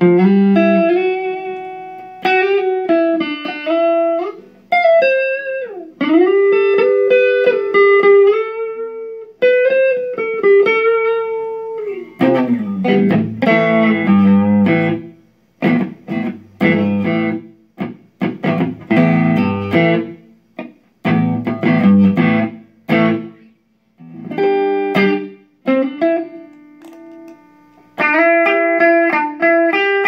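Electric guitar played through a Line 6 Flextone III combo amp: a melodic line of single notes and held chords with a bend, then short, choppy chords with a heavier low end, then sparser notes again near the end.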